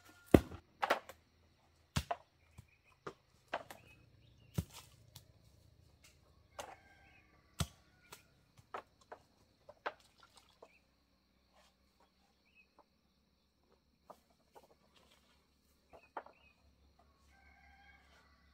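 Scattered sharp knocks and clicks, the loudest in the first second, with a few short animal calls about six seconds in and again near the end.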